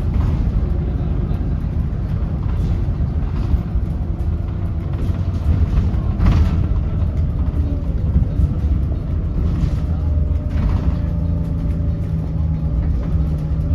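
Volvo B7RLE bus's Volvo D7E diesel engine running under way, a steady heavy rumble with a thin turbo whine over it. A few short knocks and rattles come through, twice standing out.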